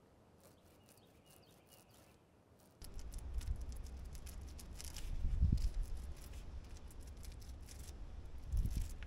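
Paint roller rolling thick enamel over the sheet-metal underside of a truck cab: a dense, sticky crackle of fine clicks, faint at first and louder from about three seconds in, over a low rumble.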